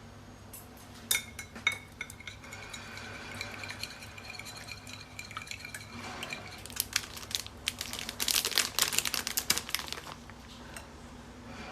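Dishes and cutlery clinking: two sharp clinks with a short ringing tone a second or so in, then a dense run of rapid clicks and scrapes lasting about three seconds in the second half.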